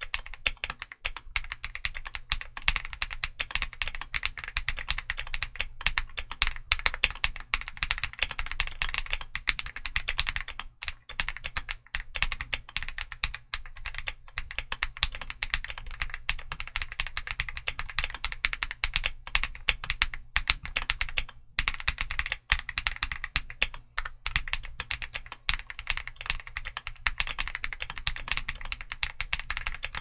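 Continuous typing on a Zoom65 V2 65% mechanical keyboard fitted with KFA N2O linear switches and MT3 Cyber keycaps: a dense, steady stream of keystroke clacks, broken by a few brief pauses.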